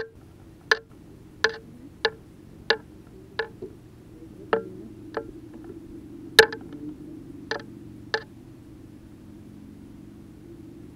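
A run of sharp, separate knocks or taps, about one every second and unevenly spaced, stopping about eight seconds in, over a faint steady hum.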